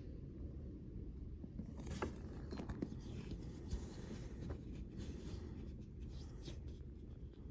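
Steady rain falling on pavement, with scattered sharp ticks of drops landing close by, a few louder ones about two to four seconds in.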